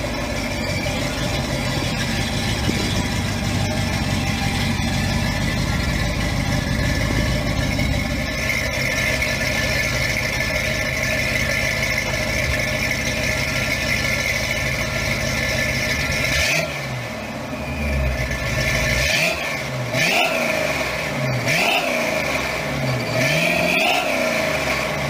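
A 1967 Mustang Shelby GT500 'Eleanor' V8 running steadily as the car drives along the road. About two-thirds of the way through, the sound changes to the engine being revved: several quick blips that rise and fall in pitch.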